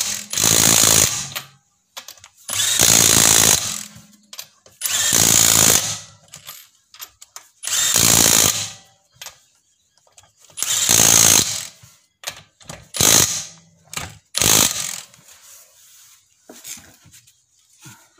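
Power tool run in about eight bursts of roughly a second each, with short pauses between, the last two briefer.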